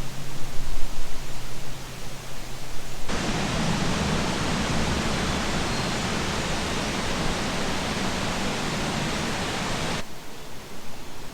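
Strong wind gusting through the trees and buffeting the microphone. About three seconds in it switches abruptly to a steadier, fuller rush, then drops back to the thinner gusts near the end.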